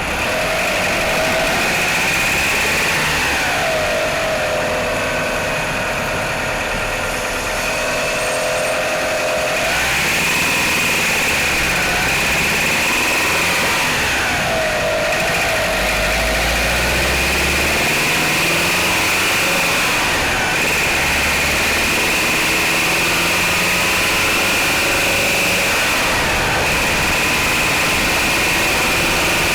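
Mitsubishi Outlander's 4G63 inline-four engine idling steadily after a cold start, its pitch wavering slowly up and down every few seconds; the owner reports knocking from this engine on cold start.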